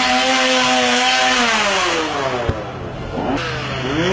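Chainsaw engine revving high, dropping back to a low idle about two seconds in, then revving up again near the end. A single sharp click is heard during the idle.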